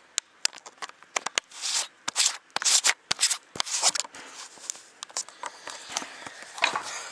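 Handling noise as a fisheye lens is fitted to a camcorder: an irregular run of sharp clicks, scrapes and rustles.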